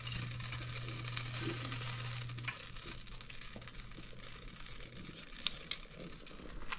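Quiet kitchen handling: a few light clicks and taps from utensils and containers over a low steady hum that drops away about two and a half seconds in.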